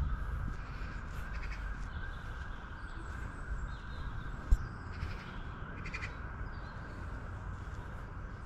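Crows cawing a few times over a steady background hiss and low rumble, with one sharp knock about halfway through.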